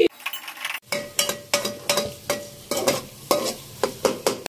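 A steel slotted spoon scraping and clinking against an aluminium pot, stirring masala frying in oil, with a steady sizzle beneath. The strokes come from about a second in, roughly two or three a second.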